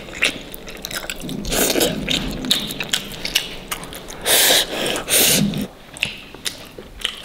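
Close-up eating sounds: chewing and biting food, with many small clicks and two louder bursts of noise around the middle.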